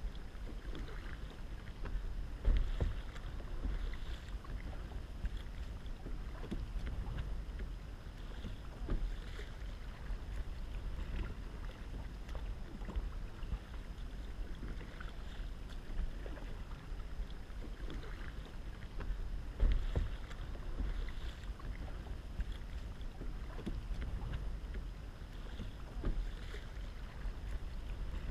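Kayak paddle strokes dipping and splashing in calm water every second or two, with water running along the hull and a steady low rumble beneath.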